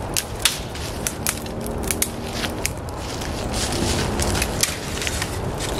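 Dry dead twigs and branches snapping and crackling as they are broken off by hand, a run of irregular sharp cracks.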